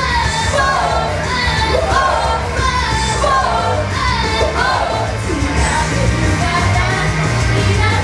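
Two female idol singers singing a pop song into microphones over a loud backing track played through a club PA system.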